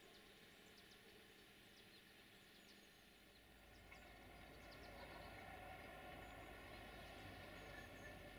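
Faint outdoor quiet with a few small bird chirps, then from about four seconds in a faint low rumble and hum build up: a distant DH2 diesel multiple unit approaching.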